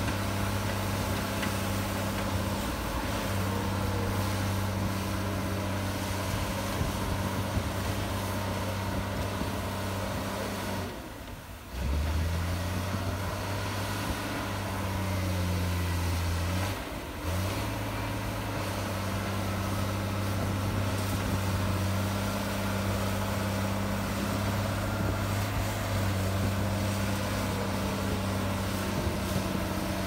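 Komatsu D53P bulldozer's diesel engine running with a steady deep hum. About eleven seconds in the sound breaks briefly and the engine note sits lower for a few seconds, then it returns to its earlier pitch.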